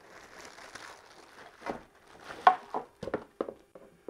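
Plastic bag crinkling as an Onforu 60 W LED flood light is drawn out of it, then a quick run of knocks and clacks as the light's housing is handled, the loudest about two and a half seconds in.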